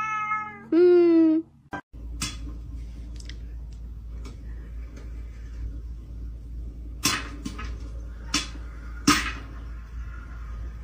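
A cat gives two falling meows, the second louder. Then an electric popcorn popper runs with a steady low hum while kernels pop sharply here and there.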